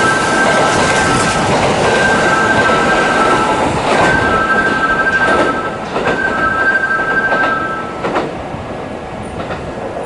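Kintetsu electric train running, wheels clicking over rail joints several times. Over it, a two-note electronic tone repeats about every two seconds, and the train noise eases off near the end.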